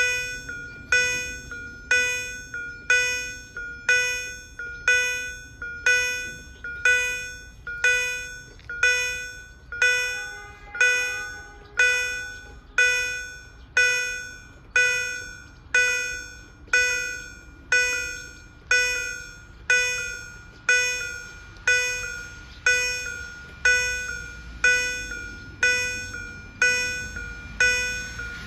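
Level-crossing warning bells (EHL-D electronic bells) ringing about once a second, each strike sounding a clear bell-like tone that fades before the next. A low rumble builds underneath near the end.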